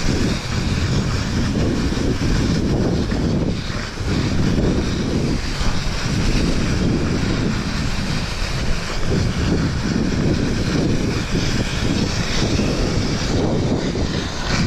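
Continuous rushing scrape of a person glissading, sliding seated down a snowfield, with wind buffeting the GoPro microphone. The noise dips briefly about four seconds in.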